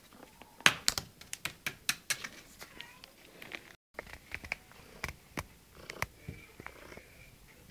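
A quick, irregular series of sharp clicks and taps, densest in the first half, with a faint thin tone briefly near the end.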